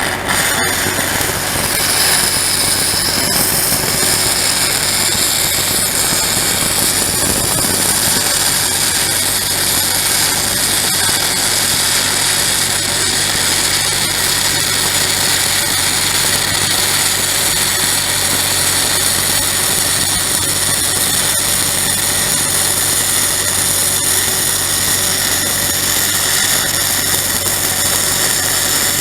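Stick welding: a steady crackling hiss from the arc, over the hum of an engine-driven welder running under load.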